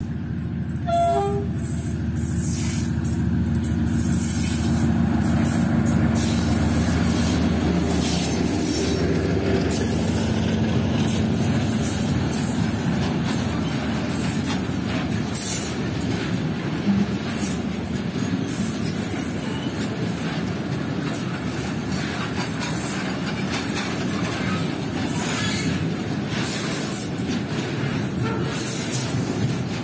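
Diesel locomotive hauling a long oil tank-wagon freight train passes close by, its engine drone building to a peak in the first several seconds. The loaded tank wagons then roll past with a steady rumble and repeated clatter of wheels over the rail joints.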